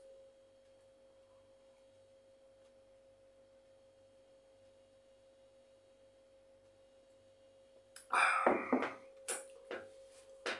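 Faint steady electrical hum with a single high tone in a quiet room. About eight seconds in there is a loud breathy exhale from a man who has just drunk a glass of water, then a short sharp knock.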